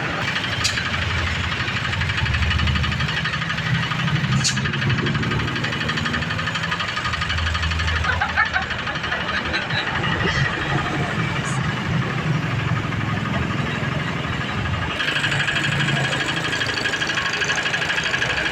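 Large diesel bus engine running close by, a deep low rumble that swells and eases. About fifteen seconds in, a steadier, brighter hiss joins it.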